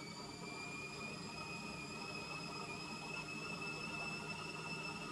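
Silvercrest Monsieur Cuisine Connect food processor's motor and blade running at speed 6, mixing thick waffle batter: a steady high whine that creeps slowly up in pitch.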